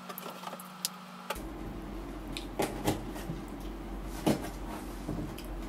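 Eating sounds: scattered wet clicks and smacks of chewing and of fingers pulling roast chicken meat off the bone, over a low steady hum.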